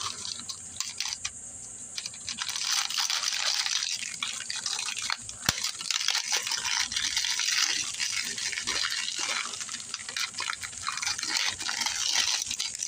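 Continuous crinkling and rustling with many small irregular clicks, as of new engine parts in plastic packaging being handled on a bench.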